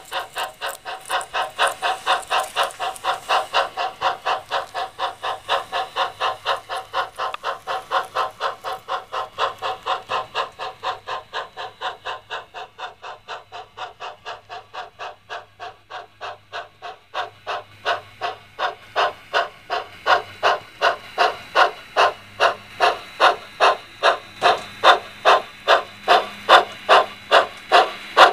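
HO-scale model 0-8-0 steam locomotive's sound-system chuffing, a steady train of hissing steam puffs. The beat slows from about four chuffs a second to under two, growing louder in the last third, as the locomotive slows on arrival.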